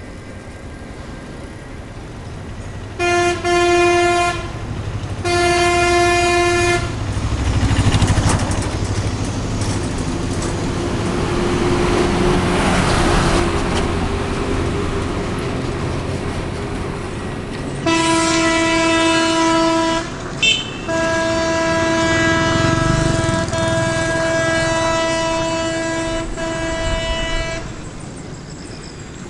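A vehicle horn sounds in blasts: two of a second or so each, then one of about two seconds, a quick toot, and a long blast of about six seconds. Between the early and late blasts a rushing noise swells and fades like a vehicle going by.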